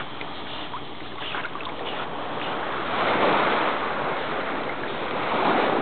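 Sea water sloshing and splashing close to the microphone around a swimming dog. It swells louder twice, about three seconds in and near the end.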